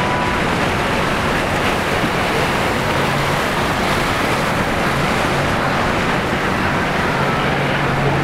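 Steady loud rush of wind and water noise, with the low hum of an idling boat engine coming in partway through and growing stronger toward the end.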